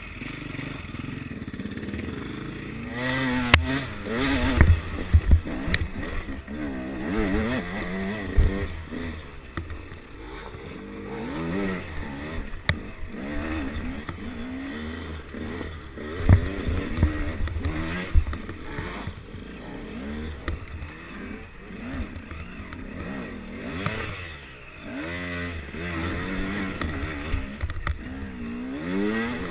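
Enduro dirt bike engine heard close from the rider's helmet, revving up and down over and over while riding a rough rocky trail. Sharp knocks from the bike hitting rocks come several times, the loudest a few seconds in.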